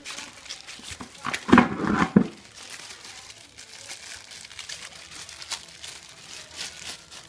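Crinkling and rustling with light clicks as a new 9-speed bicycle chain is handled, with a louder burst of rustling about one and a half seconds in.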